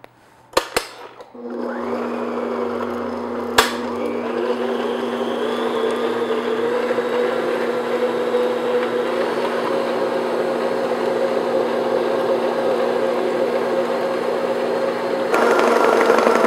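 Electric stand mixer starting a little over a second in and running steadily, its beater mixing eggs into creamed butter and sugar batter. A few sharp clicks come just before it starts, and it runs louder near the end.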